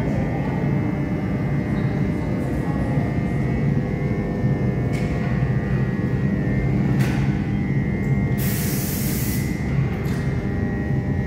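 Steady low rumble and hum of running machinery, with a few faint clicks and a short hiss about eight and a half seconds in.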